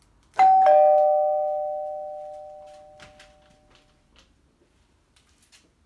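Doorbell chime rung once by its push button: a two-note ding-dong, a higher note then a lower one, both ringing on and fading away over about three seconds.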